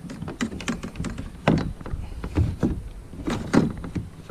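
Kayak paddle shaft being snapped into and worked in a plastic paddle clip on a plastic kayak hull, making an irregular string of sharp clicks and knocks, several a second.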